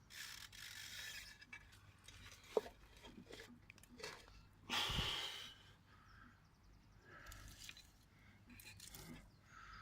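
Stones and soil crunching and scraping as they are moved by hand, in a few separate bursts, the loudest about five seconds in, with one sharp click.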